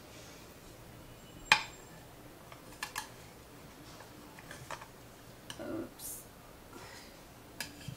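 Metal utensils clicking and scraping against a glass baking dish while a baked casserole is cut and a piece is lifted out: scattered light clicks, the sharpest and loudest about a second and a half in.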